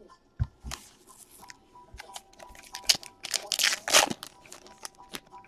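Foil wrapper of a trading-card pack being torn open and crinkled, the crackling loudest about three to four seconds in, after a couple of low taps near the start.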